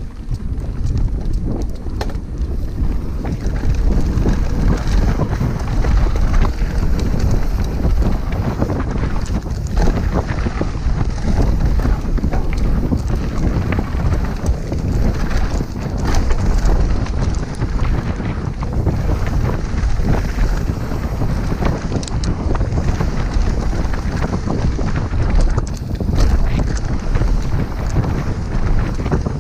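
Wind buffeting the microphone and the tyres of a downhill mountain bike rolling fast over a packed dirt trail, with a constant clatter of small knocks and rattles from the bike over bumps.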